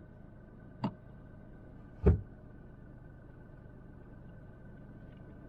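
Two sharp knocks about a second apart, the second much louder, over a steady low hum.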